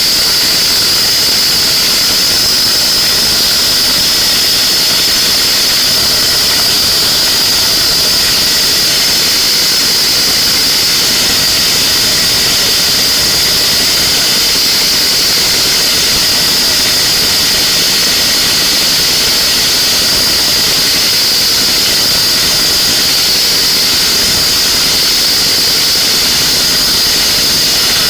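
Homemade jet engine running on a constant compressed-air jet in its inlet, a loud, steady rushing hiss with a high steady whistle in it. Its turbine is not turning: the shaft has seized, which the builder puts down to overheated lubricant forming a sticky layer.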